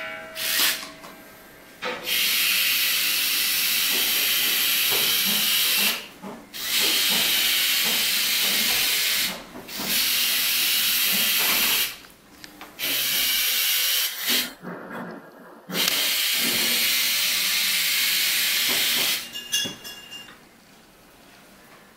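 Small tracked robot's electric gear motors and plastic tracks driving across a tile floor: an even, high whirring noise in about five runs of two to four seconds, stopping and starting between remote-control commands.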